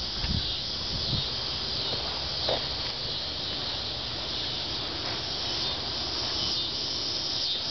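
Steady high-pitched chorus of insects, over a low background rumble.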